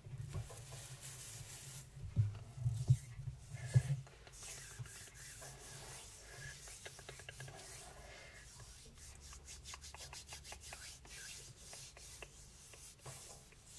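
Paper being handled and rubbed close to the microphone. Soft thumps and scraping come in the first few seconds, then a quieter, scratchy rubbing with fine ticks.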